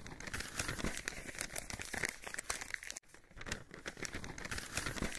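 Paper scroll being unrolled: dry crackling and crinkling of parchment-like paper, in two stretches with a brief sudden break about three seconds in.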